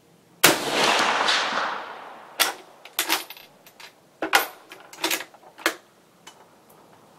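A single rifle shot from an M96 Swedish Mauser long rifle in 6.5x55mm, with a long decaying echo. The shot is followed by the bolt being worked: a string of sharp metallic clicks and clacks as it is opened, drawn back and pushed closed.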